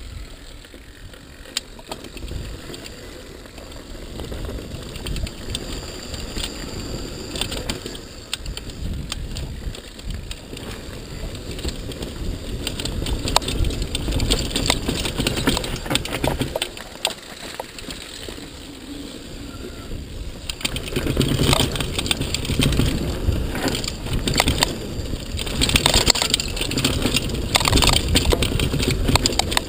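Mountain bike descending a dirt downhill trail at speed: tyres crunching over loose dirt and the bike rattling and clattering over bumps, with wind rushing on the microphone. It grows louder and rougher about two-thirds of the way through.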